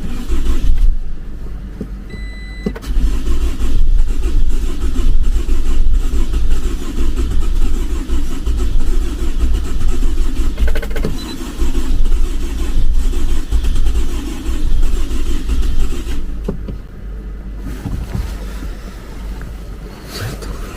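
A car's starter cranking the engine over and over without it catching: a no-start after a flat battery. A short electronic beep sounds about two seconds in.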